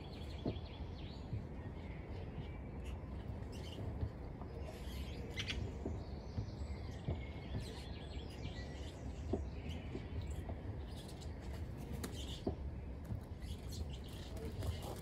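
Small birds chirping now and then over a steady low background rumble, with a few faint clicks.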